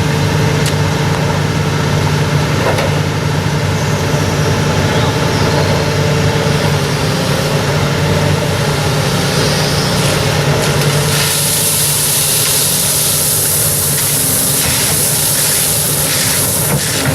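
A truck engine running steadily. About eleven seconds in, a loud hissing starts over it and keeps going.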